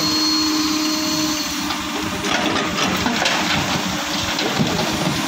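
Hydraulic excavator's diesel engine running steadily, and about two seconds in a bucketful of soil pours into a steel dump-truck bed with a clattering rush lasting a second or so.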